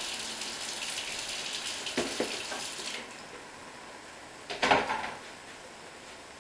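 Water pouring into a kitchen sink as cooked macaroni is drained, stopping about three seconds in. There is a light knock around the middle, and a louder knock or clatter later on as the container is handled.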